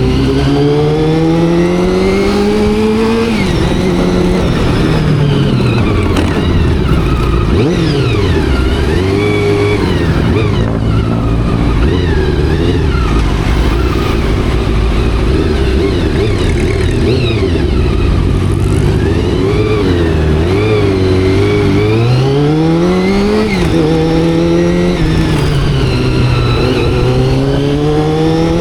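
Honda CBR400RR's carbureted inline-four engine heard from the rider's seat, revving up through the gears: the pitch climbs, drops sharply at each shift and climbs again, with a stretch of lower, varying revs in the middle, over steady wind and road noise.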